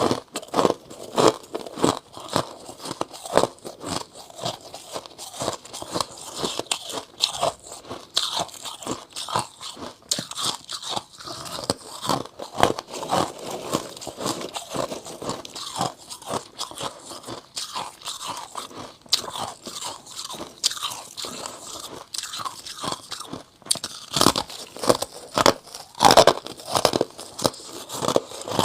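Chunks of white frost being bitten and chewed close to the microphone: a dense, irregular run of crisp crunches, with several louder bites near the end.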